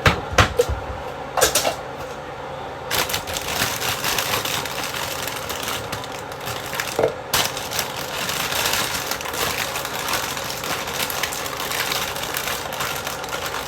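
Kitchen containers being handled: a few sharp knocks and clacks, then from about three seconds in a steady crackling rattle and rustle.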